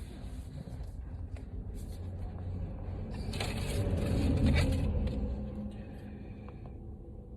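Low rumble inside a car, swelling louder with added hiss in the middle and fading again, with faint scraping and handling clicks.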